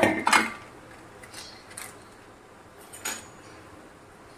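A few faint, short clicks and knocks of kitchen things being handled, over a low steady hiss.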